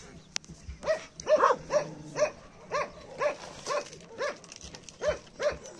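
A dog barking repeatedly, about two short barks a second, with a brief pause after about four seconds before it barks again.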